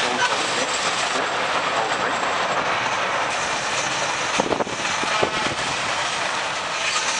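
Heritage steam shovel working: its steam engine and hoist machinery run with a steady, noisy hiss-and-clatter as the bucket lifts a load of earth. A few sharp knocks come about four and a half to five seconds in.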